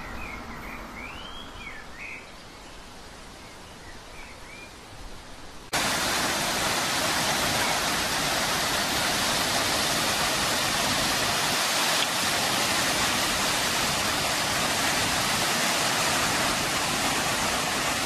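Water cascading over mossy rocks into a river, a loud steady rush that starts abruptly about six seconds in. Before it there is quiet outdoor background with a few short bird chirps.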